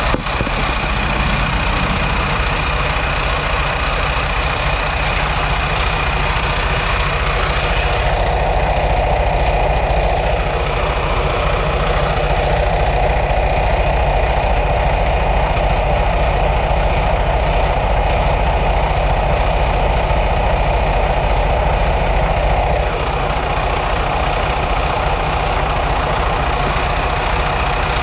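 Semi truck's diesel engine idling steadily, a low even rumble with a thin high whine over it. An extra mid-pitched hiss joins in about eight seconds in and drops away a few seconds before the end.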